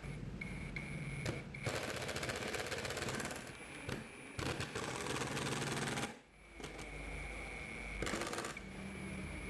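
A handheld power tool running in two bursts of fast, dense rattling, each about two seconds long, with a steady high motor whine in between.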